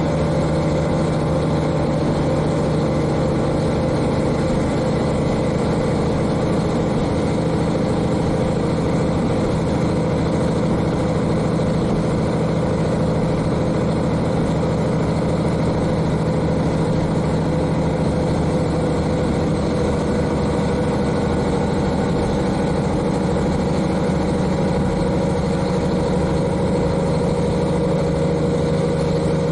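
The N-DMF13HZI diesel engine of a KiHa 40 railcar, heard from directly above it in the car, running steadily while the train travels, with a low, even engine note over running noise.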